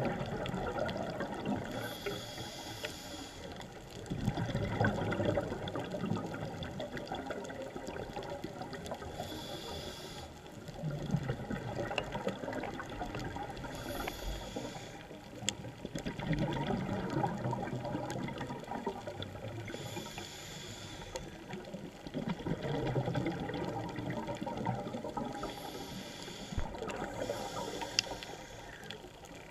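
Scuba diver breathing through a regulator underwater: a short hissing inhale, then a longer bubbling gurgle of exhaled air, repeating about every five to six seconds, five times in all.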